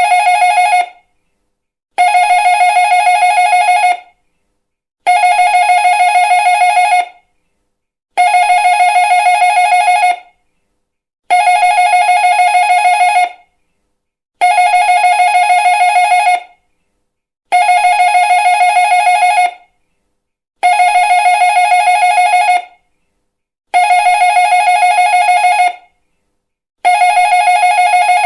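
Doorbell ringing over and over: about ten identical rings, each a fast trilling ring about two seconds long, one every three seconds or so with short silences between.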